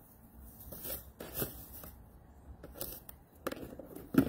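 Scattered rustling and clattering of things being handled and moved about, with a sharp knock near the end.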